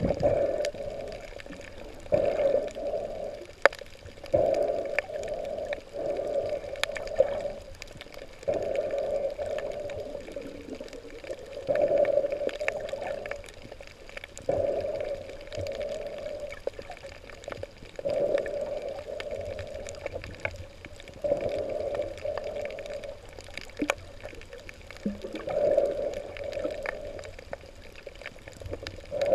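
Underwater sound of water gurgling and sloshing in recurring surges every two to four seconds, with a few sharp clicks in between.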